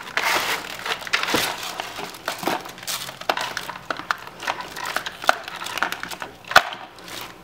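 Toy packaging crinkling and rustling as hands unwrap a doll's dress, with many sharp crackles and one louder snap near the end.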